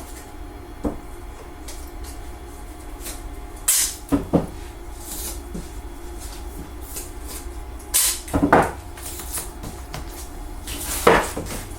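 Handling noises at a workbench: a handful of separate knocks and clatters as things are moved and set down, the loudest about 8 and 11 seconds in. A steady low hum runs underneath.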